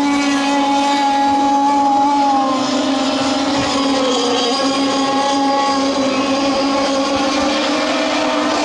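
Several radio-controlled model racing boats running at full speed, their small motors making a steady high-pitched whine of several overlapping tones that drift slightly in pitch as the boats pass.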